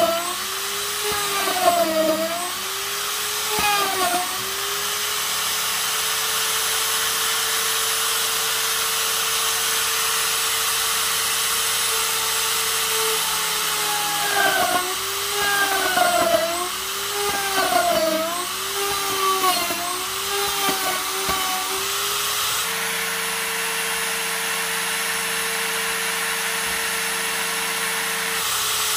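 Electric router running with a steady whine, its pitch sagging and recovering each time the bit bites into the wood: a few cuts in the first seconds, then a quick run of about one a second in the second half, as the motor slows under load.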